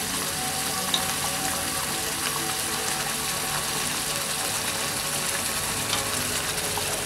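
Thick peanut seasoning sauce steadily bubbling and sizzling in an aluminium wok, stirred and scraped with a metal spatula.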